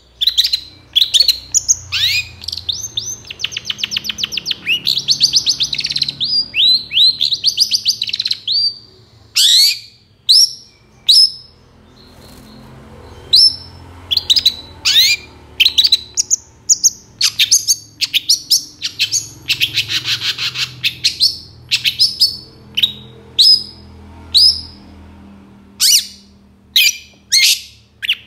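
Long-tailed shrike (cendet) singing: loud, sharp, high notes that sweep downward, strung together in quick bursts with short pauses. A fast chattering trill comes twice, near the start and about two-thirds of the way through.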